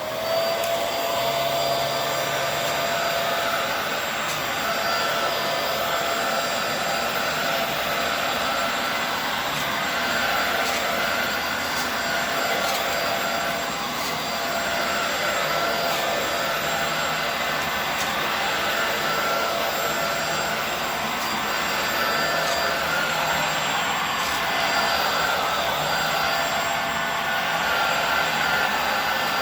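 Hoover WindTunnel Air Steerable upright vacuum cleaner switching on right at the start and then running steadily while it vacuums a rug, a loud motor and airflow noise with a faint steady whine.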